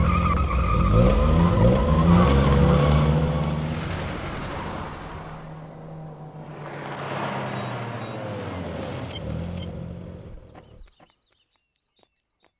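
Car driving, its engine rising and falling in pitch in two loud swells, then cutting off abruptly about eleven seconds in.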